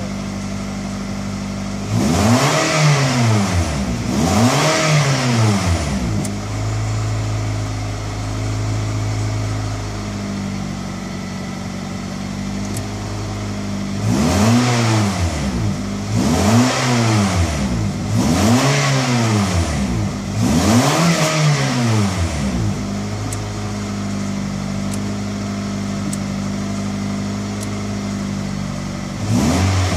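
Car engine idling, heard from inside the cabin, between quick throttle blips that each rise and fall back to idle: two a couple of seconds in, a run of four or five about halfway through, and another starting near the end.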